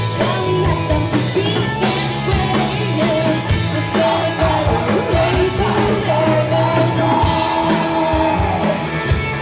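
Live rock band playing: electric guitars, bass and drum kit, with a woman singing lead into a handheld microphone.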